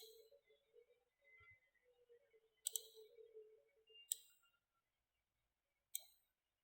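Faint computer mouse clicks in near silence: one at the start, a quick double click nearly three seconds in, then single clicks about four and six seconds in.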